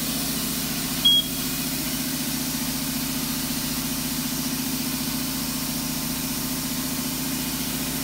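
Steady low mechanical hum in a tire shop, with one short high beep about a second in from the wheel balancing machine.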